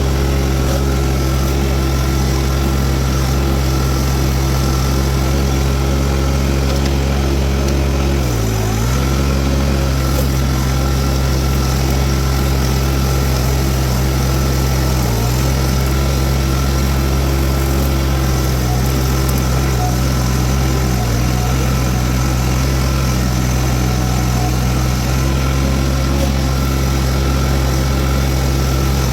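Diesel engine of a Toro TX1000 mini skid steer running steadily at working speed while it drives a Virnig V20 brush mower. The engine pitch dips briefly about eight seconds in and again about fifteen seconds in, as the engine takes a load.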